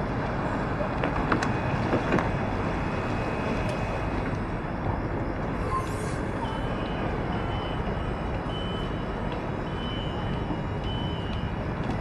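Steady car and street noise as a car pulls up and stops, with two light clicks about one and two seconds in.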